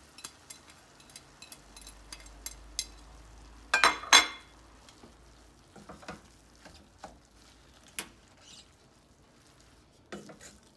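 Wooden spoon stirring hot minced lamb and onions with parsley in a stainless steel pot, with scattered light clicks and scrapes against the pot and a loud double knock about four seconds in.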